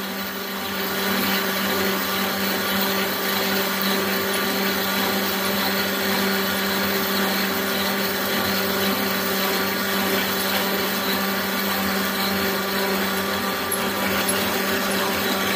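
Drill press turning a 40 mm hole saw slowly through oiled steel plate: a steady motor hum under the saw's continuous grinding cut.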